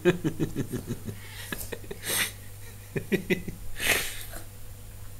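Wheezy, breathless laughter in quick pulses, with two loud breathy gasps about two and four seconds in.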